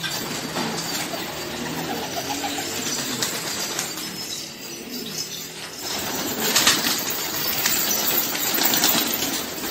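A flock of Syrian domestic pigeons in a loft, wings flapping and fluttering with some cooing underneath. A loud flurry of wingbeats comes about six and a half seconds in.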